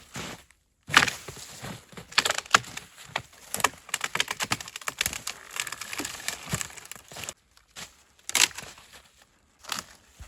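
Dry wood cracking and snapping, a quick irregular run of sharp cracks and crunches, broken twice by brief dead silences.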